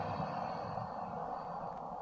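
Tail end of a designed giant-snake creature vocalization: a low, rough, growling rumble that slowly fades.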